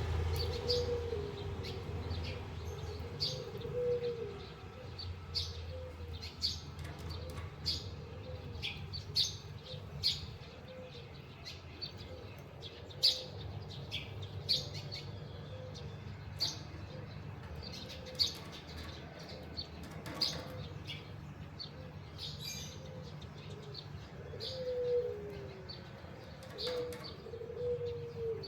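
Short, high chirps from small caged finches, a canary and a white-headed munia, scattered throughout, with doves cooing low now and then, most plainly near the start and near the end.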